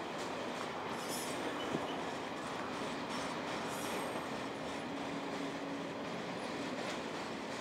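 Florida East Coast Railway intermodal freight cars rolling past a grade crossing as the train slows to a stop: steady wheel and rail noise, a sharp click just under two seconds in, and a faint low squeal about five seconds in.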